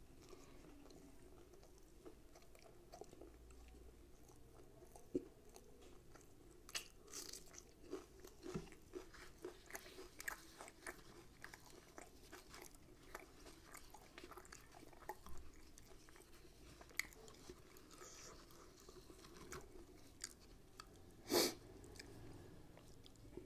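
Close-up, quiet chewing of soft rumali roti and mutton tikia, with a run of small wet mouth clicks and smacks in the middle. One brief, louder noise comes near the end.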